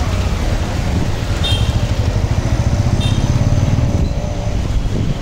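Motorcycle engine running while riding along, with road noise; its low drone swells in the middle. Two short high beeps sound about a second and a half apart.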